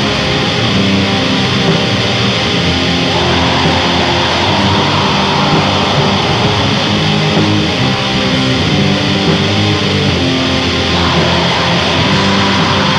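Raw black metal: distorted electric guitar and drums with a dense, lo-fi sound, playing steadily loud, with chord changes about three seconds in and again near the end.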